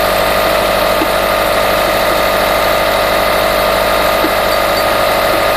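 Subaru Forester flat-four boxer engine idling cold, with a steady knock from the timing-belt area that appeared after the belt and rollers were replaced; its cause is unknown to the owner.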